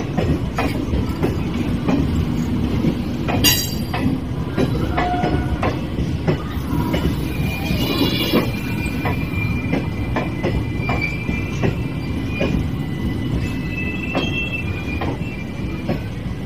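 Passenger coaches rolling past along a platform, a steady rumble with repeated clicks of wheels over rail joints. Wheels squeal briefly, with a sharp screech about three and a half seconds in and thin squeals around the middle and again near the end.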